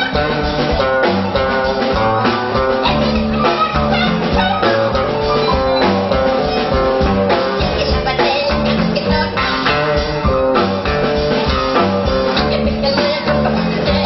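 Live band music: electric guitar and drum kit with a woman singing into a microphone.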